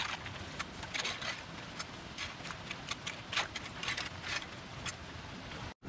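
Rake working through cut canary grass clippings: a run of irregular scrapes, rustles and clicks. It cuts off suddenly just before the end.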